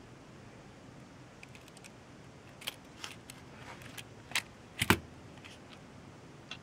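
A few scattered small clicks and taps of handling, the loudest a quick double knock about five seconds in, over a faint steady hiss.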